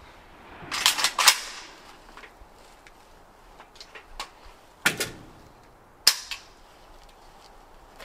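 Kalashnikov rifle firing single shots: a quick run of three about a second in, then another shot near five seconds and one more near six seconds, each a sharp crack with a short trailing echo.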